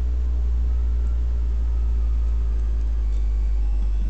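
A steady low rumble with a faint hum above it, drops slightly in pitch near the end.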